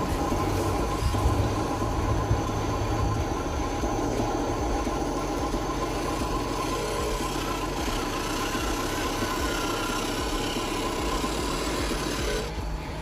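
Remote-control model truck running, a steady engine-like idling noise with a low rumble that eases slightly near the end.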